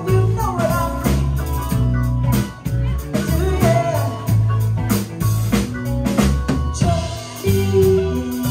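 Live rock band playing through the PA, with drum kit and electric bass to the fore, and electric guitar and keyboard filling in the middle.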